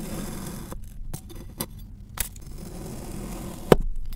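A chef's knife slicing through a dome of kinetic sand: a soft gritty crunch as the blade passes through the packed sand, with several sharp clicks of the blade in between, the loudest near the end.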